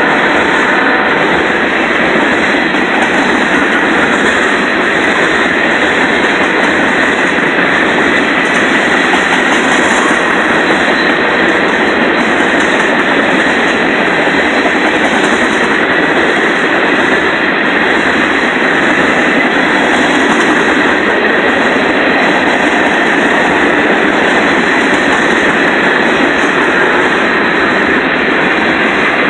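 Freight train of loaded tank cars rolling past: a steady, loud noise of steel wheels running on the rails.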